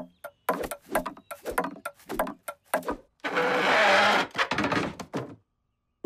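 Cartoon table-tennis ball knocking back and forth, about three hits a second. About three seconds in comes a rushing noise lasting about a second, then a few more knocks before it stops.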